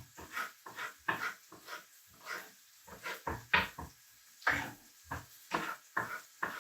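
Kitchen knife chopping red pepper on a chopping board: quick repeated knocks of the blade on the board, about three or four a second, with a short pause midway.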